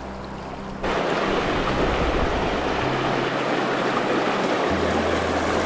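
Shallow river current rushing and splashing close to the microphone, a loud steady rush that starts abruptly about a second in.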